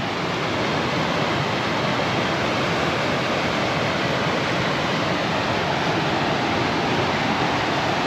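Waterfall pouring, a steady, unbroken rush of water.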